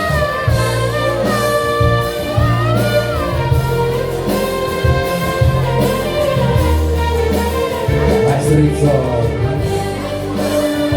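A band plays an instrumental break in a Balkan pop ballad: a sustained, gliding melody line over steady bass notes that change about once a second.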